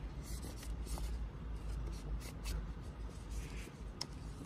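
A cloth wiping and rubbing a plastic air filter frame, with a few light clicks as the frame is handled, over a low steady rumble.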